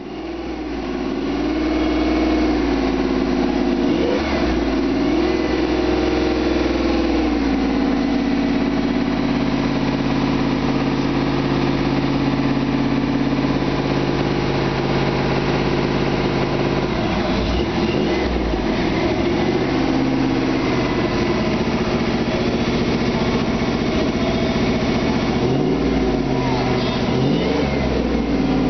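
Shelby GT500 Mustang's V8 engine idling, revved briefly and let fall back a few times: about four seconds in, around seventeen to twenty seconds, and again near the end.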